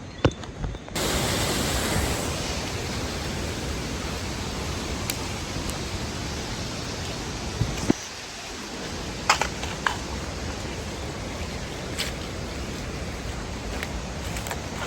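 Hurricane storm noise: a steady rushing of wind and rain that starts abruptly about a second in, with a few sharp knocks.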